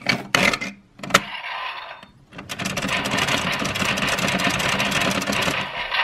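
Plastic clicks as a Sentai Gear is seated in a DX Geartlinger toy blaster, then about three seconds of fast, rattling clicking as the gear is spun, along with the toy's electronic sound effect.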